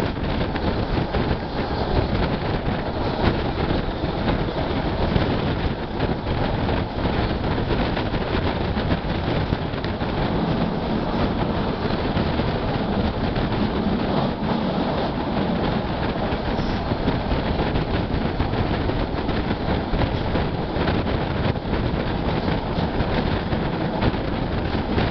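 Steady running noise of a moving passenger train, heard from an open carriage window: the wheels rumbling along the rails without a break, mixed with the rush of passing air.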